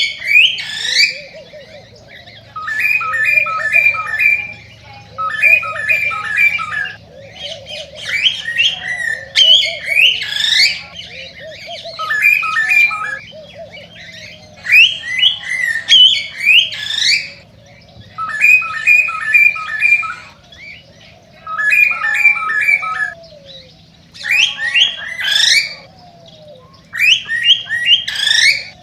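Male cockatiel singing its excited courtship song: bursts of rising whistles alternate with quick runs of repeated chirping notes, phrase after phrase with short pauses between.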